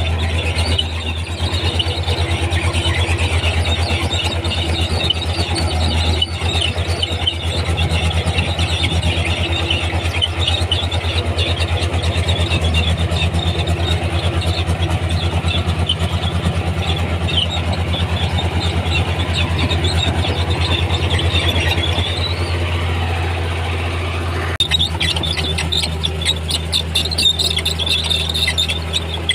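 Komatsu D31P crawler bulldozer's diesel engine running steadily under load, with high-pitched squealing from its steel tracks and undercarriage as it moves. The sound dips briefly near the end, then the squealing comes back sharper.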